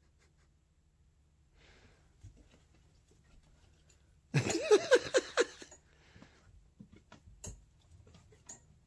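Egyptian Mau kitten playing with cords on a towel: scattered soft taps, scuffs and rattles. About four seconds in comes a loud burst of a voice rising and falling in pitch several times, lasting about a second and a half.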